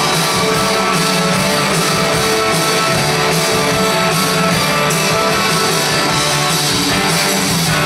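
Live rock band playing loud and steady, with strummed acoustic and electric guitars.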